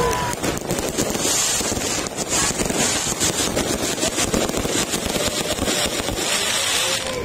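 Aerial fireworks bursting and crackling overhead: a dense, continuous run of sharp pops and crackles over a rushing haze of noise.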